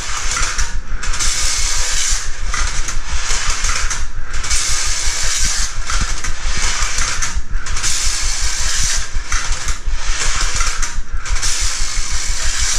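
Technofix 'Coal Train' tin windup toy running: its clockwork mechanism whirring and the small tin cars rattling along the tin track, the noise dipping briefly every second or two.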